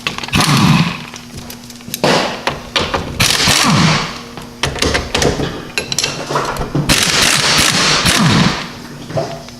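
Impact wrench hammering in about five bursts of rapid clatter, each up to a second and a half long with short pauses between, breaking loose and running off the 21 mm main strut bolts.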